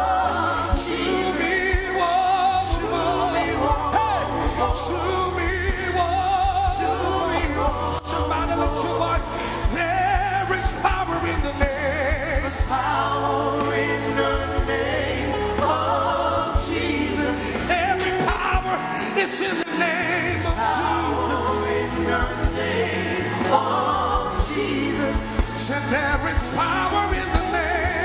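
Live gospel worship music: voices singing over a band, with sustained low bass notes and regular percussion hits throughout.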